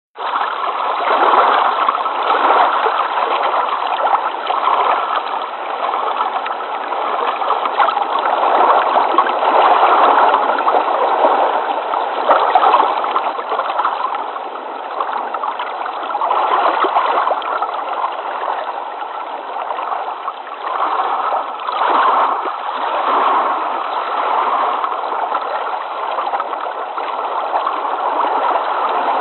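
Flowing water, running steadily, swelling and easing a little in loudness.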